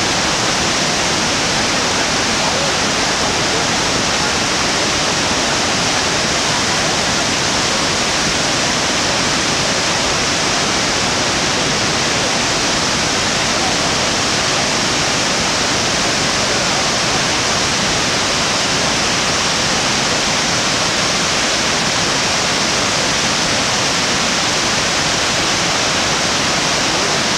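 Iguazú Falls: an enormous volume of water plunging into the gorge, heard close up as a loud, steady, unbroken rushing noise.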